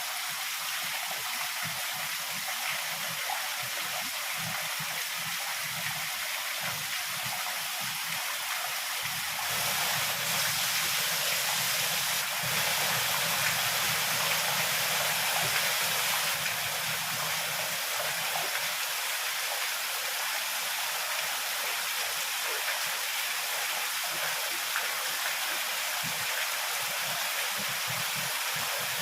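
Heavy rain falling in a steady, dense hiss. About a third of the way in it swells louder for several seconds with a low rumble underneath, then settles back.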